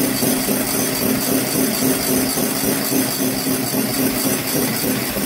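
Electric hand whisk running steadily, beating egg whites in a mixing bowl toward stiff peaks.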